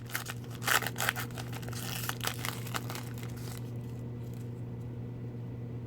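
Plastic wrapper of a hockey card pack being torn open and crinkled by hand, a run of sharp crackles that stops about three and a half seconds in.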